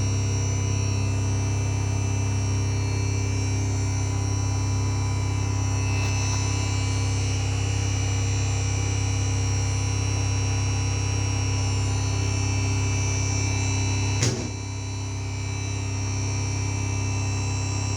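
5.1 home-theatre amplifier putting out a loud, steady low mains hum with a row of higher overtones: an unwanted hum fault in the amplifier. About fourteen seconds in there is a click, the hum dips, then it builds back up.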